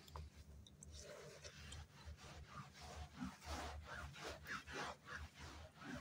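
A cloth rubbed by hand over a carpet: a faint series of brushing strokes, about two or three a second, starting about a second in.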